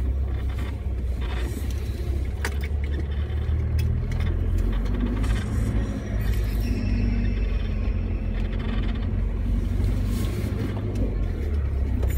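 Steady low rumble of an off-road 4x4's engine and drivetrain heard from inside the cab while it drives across a rough field, the Nissan Patrol Y61's 3.0 turbo-diesel.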